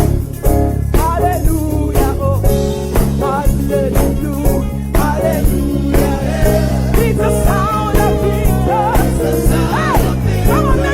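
Live gospel praise band playing an upbeat groove with bass, drums on a steady beat and guitar, with a voice singing or ad-libbing over it.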